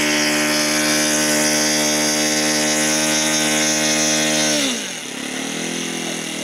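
RC model airplane's engine running steadily at high revs, a buzz with a clear pitch. About four and a half seconds in, its pitch falls sharply and the sound goes quieter, running on lower and unevenly.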